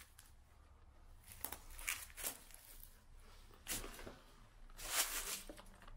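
A few short rustling crunches of footsteps on a leaf- and rubble-strewn concrete floor, the loudest about five seconds in, in a small enclosed block-walled room.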